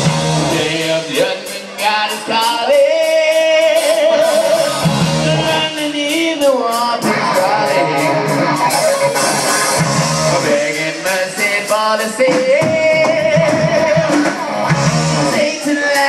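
Live hard-rock band playing: a lead line holds and bends notes with vibrato, breaking into quicker runs, over distorted guitar, bass and drums.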